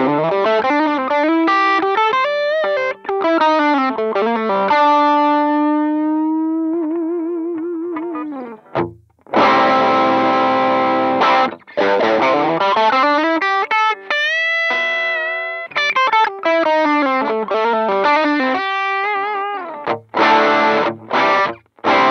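Electric guitar played through the Demonfx DualGun overdrive pedal (a King Tone Duellist clone), its Drive-B side engaged, giving a mildly distorted tone. Quick single-note licks with bends, then a long held note with vibrato, strummed chords about nine seconds in, more licks, and chords again near the end.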